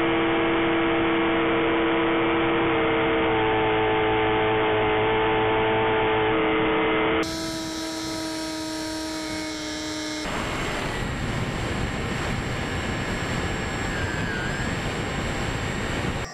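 Bixler 3 RC plane's electric motor and pusher propeller whining steadily over wind rush, heard from a camera on the plane. The sound changes about 7 seconds in, and from about 10 seconds on the whine is faint, leaving mostly wind rush.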